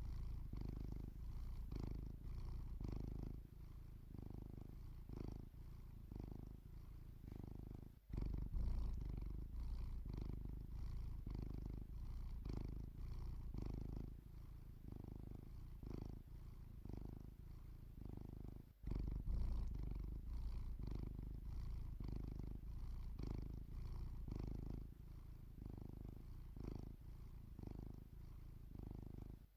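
Sleeping domestic cat purring close up, a low, steady purr that swells and eases in an even rhythm with each breath in and out.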